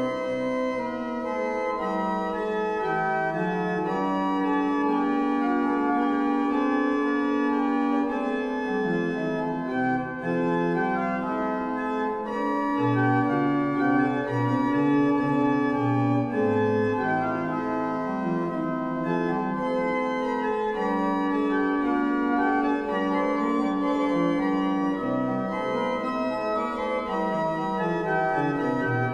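Small Renaissance pipe organ (Jan van Covelens, 1511) playing several lines of music at once on its flute stops, Holpijp 8' and Koppeldoof 4'. Its notes are steady and sustained, and lower notes are held beneath the moving upper voices.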